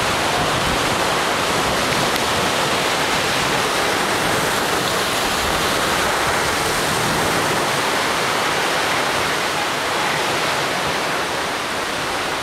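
Ocean surf breaking on the rocks: a steady rush of wave noise that eases slightly near the end.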